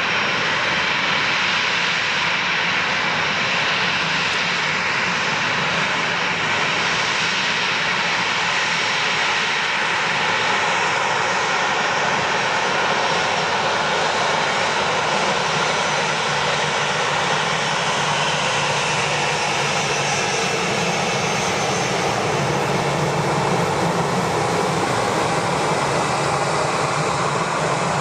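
Boeing 737 jet engines running loud and steady: an even rushing noise with faint high tones in it.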